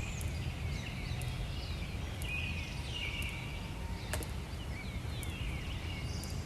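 Birds chirping with short calls and quick falling notes, repeating throughout, with a few sharp clicks, over a steady low background rumble.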